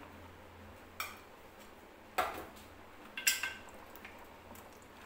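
Three light metal clinks of kitchen utensils as fried raisins are sprinkled over biryani rice in the pot, the last with a brief ringing tone.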